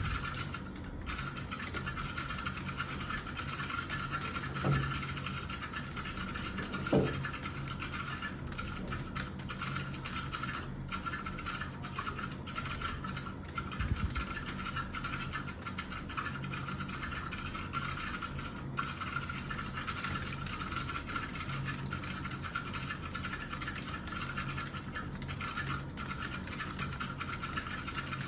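Fast, continuous clatter of keys on a hard keyboard being typed on, broken by brief pauses. Two short falling glides about five and seven seconds in are the loudest moments.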